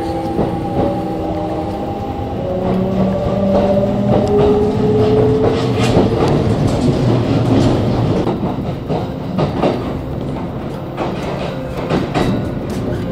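Kintetsu electric train heard from inside the car as it pulls out of a station: the motors' whine climbs in pitch in steps while it accelerates. About halfway through, the whine gives way to the running rumble and the clatter of wheels over rail joints.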